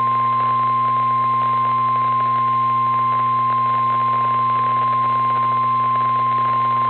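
Emergency weather alert tone: a single steady high-pitched beep, held without a break, the warning alarm that announces a severe thunderstorm warning broadcast is about to follow. It plays over radio hiss, a low hum and faint crackle.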